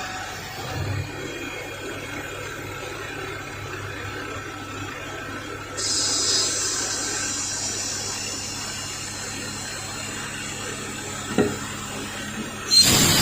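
Metalworking machine tool running with a steady hum. A high whine joins about six seconds in, there is a single knock near the end, and then a loud hissing burst.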